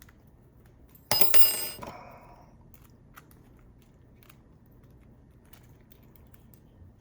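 A short metallic clatter about a second in, with a brief ringing tail, as metal tools or lock parts are set down; then faint small clicks of handling.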